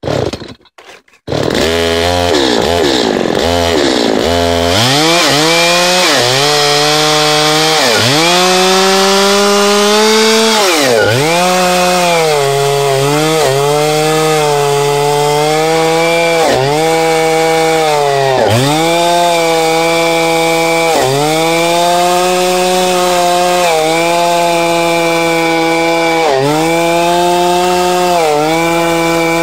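Two-stroke chainsaw on a homemade chainsaw mill starting up about a second in, then ripping a log lengthwise. The engine pitch dips and recovers every couple of seconds under the load of the cut.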